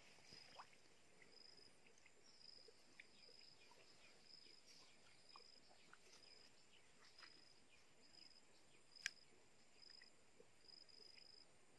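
Near silence with a faint insect chirping in short, evenly spaced high bursts, somewhat under two a second. Scattered faint ticks, the sharpest a single click about nine seconds in.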